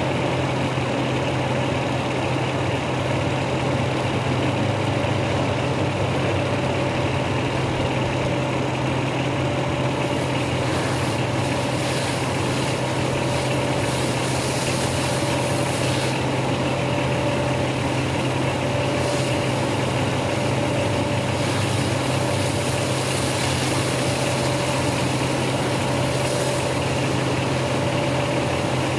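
Fire engine's motor running steadily at a fixed speed to drive its pump, a constant low hum with a steady whine above it. From about ten seconds in, a hiss swells and comes and goes on top.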